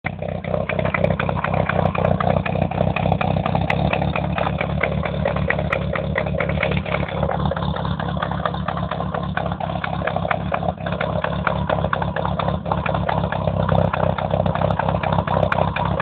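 Ford Escort 1.8 Ghia engine, fitted with a hotter camshaft, a larger carburettor and a 4-into-1 exhaust header, running steadily with a rapid, even train of exhaust pulses.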